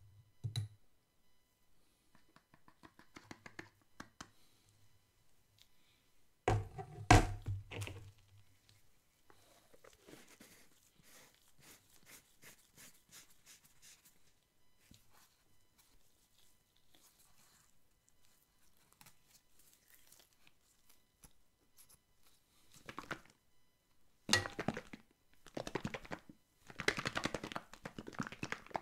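Handling noises of kitchen items on a tabletop: a soft knock, a loud thunk about a quarter of the way in, and scattered light clicks. Near the end, a quick run of rubbing strokes as a small pink tool is wiped over the flat plate of a round crepe griddle.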